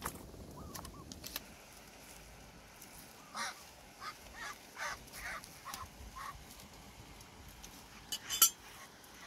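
Duck quacking in a run of about eight short quacks, a few seconds in. Near the end, one sharp, loud clatter.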